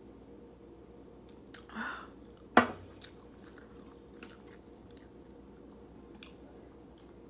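A person chewing food close to the microphone, with soft mouth clicks. There is a short noisy sound a little under two seconds in and a single sharp knock about half a second later, the loudest thing heard.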